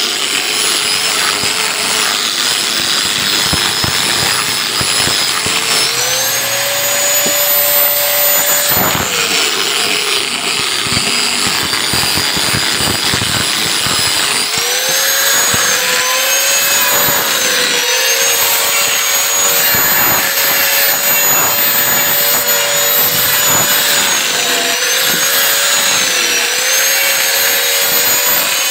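Electric angle grinder with a sanding disc running continuously while sanding a wooden block. Its whine drops in pitch whenever the disc is pressed into the wood and climbs back when it is eased off, several times over, over a gritty scrubbing of abrasive on wood.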